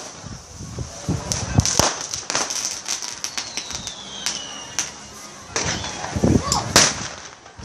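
Small hand-lit fireworks and firecrackers going off in scattered sharp cracks and pops over a steady high hiss, with a falling whistle about three seconds in.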